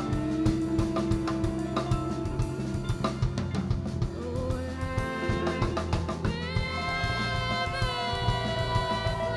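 Live jazz band playing: a drum kit keeps up busy snare, bass drum and rimshot strokes under bass, guitar and keyboard. Held notes build about halfway through and settle into a sustained chord near two-thirds of the way in.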